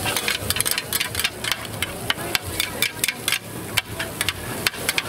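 Metal spatula clanking and scraping against a wok in quick, irregular strokes while pad thai noodles are stir-fried, over a faint sizzle.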